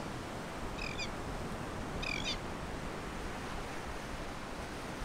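Steady wash of breaking surf, with a bird giving two short calls, about a second in and about two seconds in.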